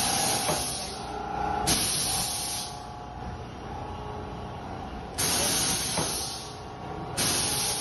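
Semi-automatic paper boat-tray forming press cycling: compressed air hisses out in four sharp bursts, each fading over about a second, with a few light clicks from the press.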